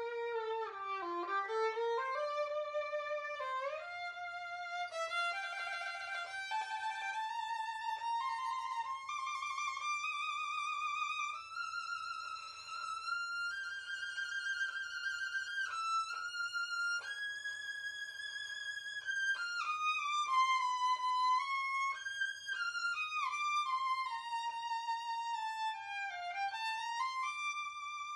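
Solo violin playing a melody of long held notes with vibrato and slides between notes, climbing to its highest held notes in the middle and sliding back down near the end.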